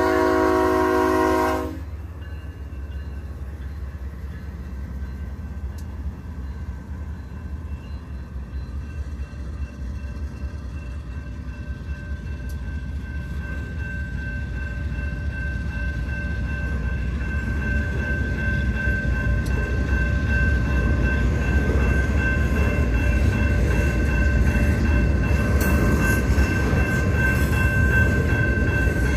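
A BNSF freight locomotive's air horn sounds a held chord that cuts off about a second and a half in. Then the double-stack intermodal train rolls past: a steady low rumble of wheels and cars that slowly grows louder, with a thin high tone running through it.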